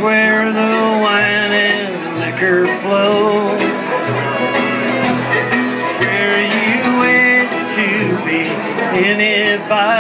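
Live acoustic country band playing an instrumental break: strummed acoustic guitars under a fiddle carrying the melody with a wavering vibrato.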